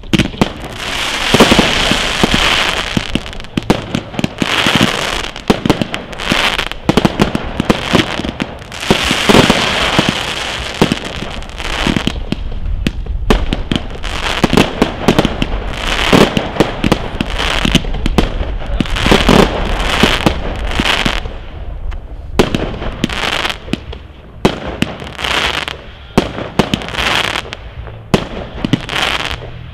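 Fireworks display: a continuous barrage of aerial shots launching and bursting in quick succession, with many sharp bangs and crackles.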